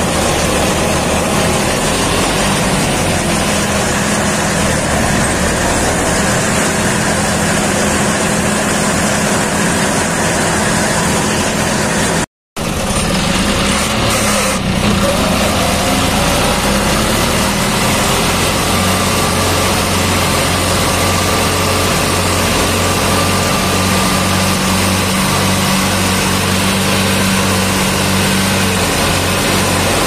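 Diesel engine of a farm machine running steadily. There is a sudden break in the sound about twelve seconds in, and a short rise in engine pitch a couple of seconds later.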